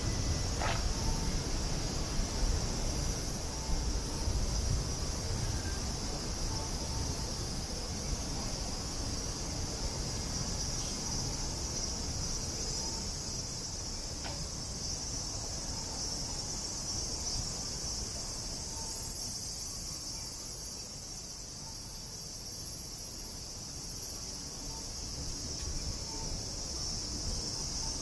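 A steady, high-pitched drone of cicadas in full summer chorus, over a low outdoor rumble, with a few faint short tones scattered through it.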